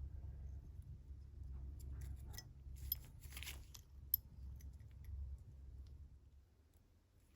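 Faint clicks and light handling noises over a low steady hum, with one sharp click near the middle, then dead silence for the last second or so.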